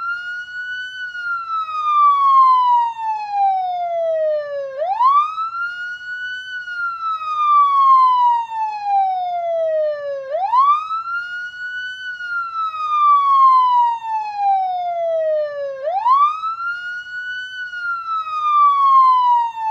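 Police siren in wail mode: a single tone that climbs quickly, then slides slowly back down, repeating about every five and a half seconds.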